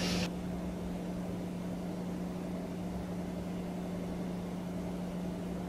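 Room tone: a steady low hum holding one even pitch throughout, with no other events.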